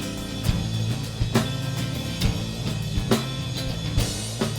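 Live band playing an instrumental passage: a drum kit keeps a steady beat of kick, snare and rimshot strokes over sustained low bass notes.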